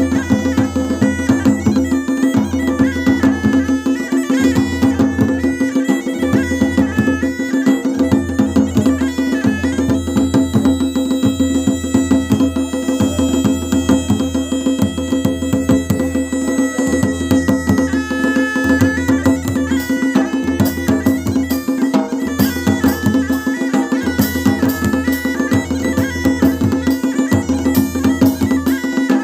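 Masakbeen, the Kumauni bagpipe, playing a folk melody over its steady drone, with dhol and damau drums beating the rhythm beneath. The pipe holds a long high note for several seconds in the middle, and the drumming grows busier towards the end.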